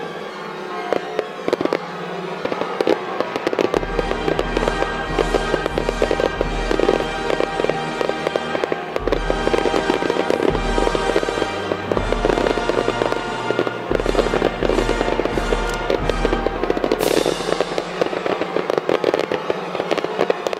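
Distant fireworks display: dense crackling and popping from aerial shells bursting, with low booms rumbling from about four seconds in.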